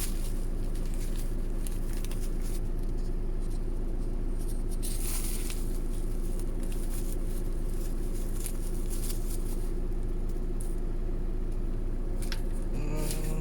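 A steady low electrical or mechanical hum with several even tones, with a few brief clicks and rustles of handling, around 5 seconds in and near the end.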